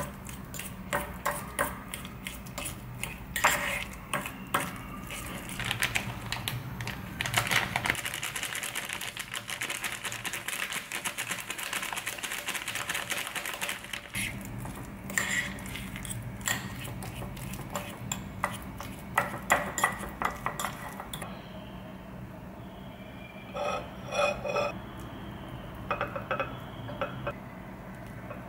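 A metal fork clinking and scraping against a ceramic bowl in quick, repeated strokes, mashing potatoes. The scraping is densest around the middle; about two-thirds of the way in it turns quieter, leaving a few short clusters of knocks.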